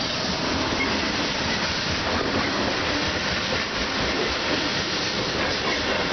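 Freight train boxcars rolling past close by: a steady noise of steel wheels on the rails and rattling cars.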